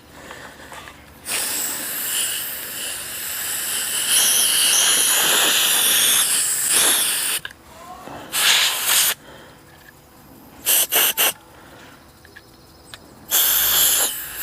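Air blower blasting air through a generator's fuel tank parts to clear out carb cleaner and crud: one long hissing blast of about six seconds, then a shorter blast, three quick bursts, and a last blast near the end.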